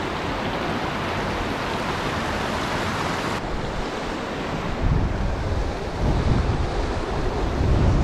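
Mountain torrent rushing over rocks in a steady roar, turning duller about three seconds in. From about five seconds in, gusts of wind buffet the microphone with a low rumble.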